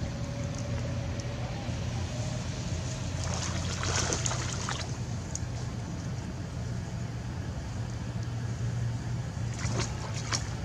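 A steady low engine hum, with brief splashing of water about four seconds in and again near the end as monkeys swim.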